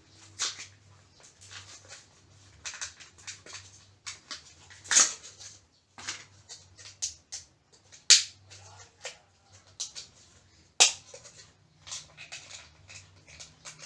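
Irregular clicks, taps and rustling of hands working inside an opened laptop, with three sharper, louder clicks about five, eight and eleven seconds in.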